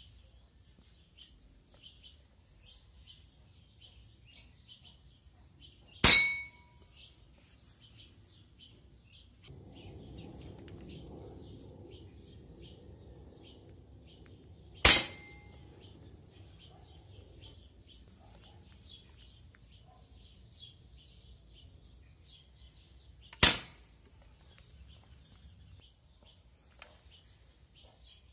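Three hits on hanging metal targets from a Barra 1866 Cowboy lever-action BB rifle, each a sharp clang with a short metallic ring, spaced about eight to nine seconds apart. Birds chirp throughout.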